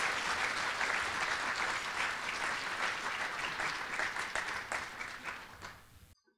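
Audience of about 400 people applauding, a dense patter of many hands clapping. The clapping thins out over the last second and cuts off abruptly just before the end.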